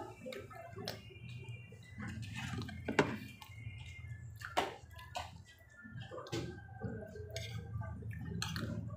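Close-up eating sounds: wet chewing and mouth noises over soft cassava cooked in coconut milk, with a few sharp clicks of a utensil against a plate.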